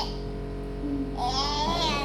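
A young child's high-pitched vocal squeal: a single call that rises and then falls, starting a little past halfway through, over a steady low hum.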